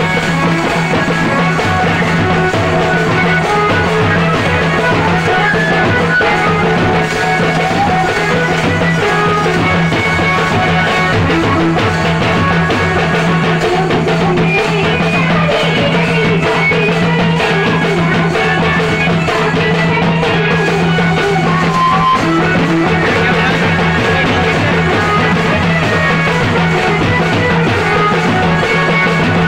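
Loud, dense live drumming on stick-struck two-headed drums, played as dance music without a break, over a steady low hum.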